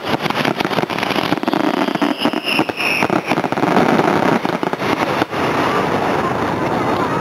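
Fireworks finale: a rapid barrage of aerial shells bursting, with dense bangs and crackle and a brief whistle from a whistling shell about two to three seconds in. The bangs thin out after about five seconds.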